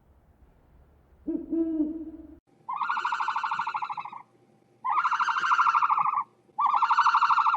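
Animal calls: a low hoot about a second and a half in, then three long, higher calls with a rapid rasping pulse, each lasting about a second and a half.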